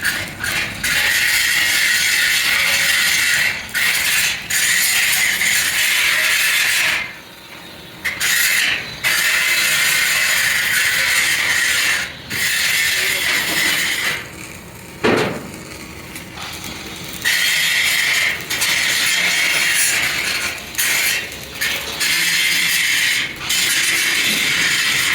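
Harsh mechanical noise from metal being worked on a truck axle, coming in runs of several seconds that cut off and restart abruptly. There is a single low knock about fifteen seconds in.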